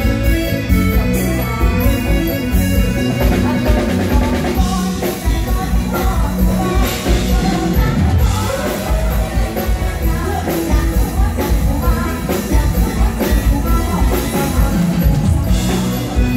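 Live Thai luk thung band music played loud through a stage PA, with a bass-heavy steady drum beat and a woman singing into a microphone.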